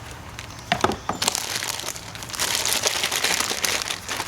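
Packaging handled and rustled as an electronic deadbolt lock unit is unwrapped, with a couple of sharp clicks about a second in and denser rustling in the second half.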